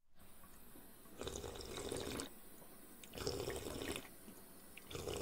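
Water sounds, with three swelling surges of liquid noise about two seconds apart over a steady background hiss.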